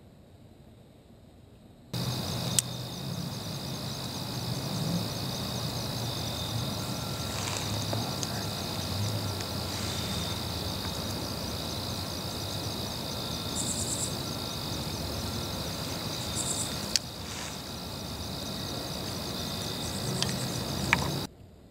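Steady chorus of insects trilling, with a few sharp clicks and brief high chirps over it. It starts abruptly about two seconds in and cuts off just before the end.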